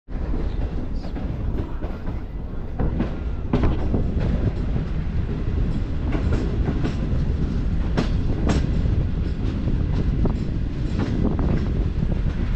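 Pakistan Railways Green Line Express coaches running along the track, heard from an open doorway: a steady low rumble of the wheels with irregular sharp clicks and clanks as they pass over rail joints.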